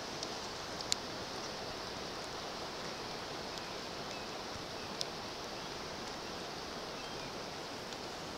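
Steady rushing noise of water, with a couple of sharp clicks, the clearest about a second in and another about five seconds in.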